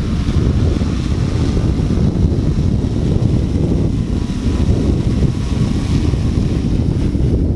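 Wind buffeting the microphone: a steady, loud low rumble with a fainter hiss above it.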